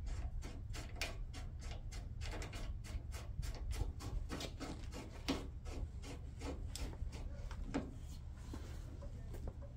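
Hand rivet nut tool being worked to snug up a threaded insert: a run of small metallic clicks and rubs, about four a second at first, thinning out in the second half.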